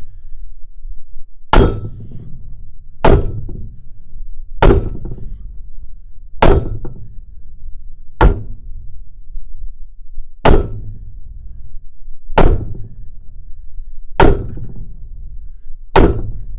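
Metal being banged: nine sharp clanging strikes, about one every two seconds, each ringing briefly, over the low steady rumble of an oxy-acetylene torch burning.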